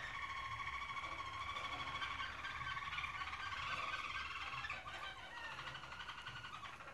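Roller canary singing: long, rapid rolling trills held on a few steady pitches, thinning out about five seconds in.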